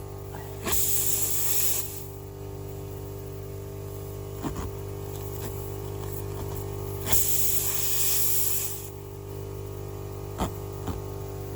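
Air hissing out of a punctured, inflated tire in two bursts of one to two seconds each, as a plug kit's reaming tool is worked in the hole. A steady electrical hum runs underneath, with a few light clicks of the tool.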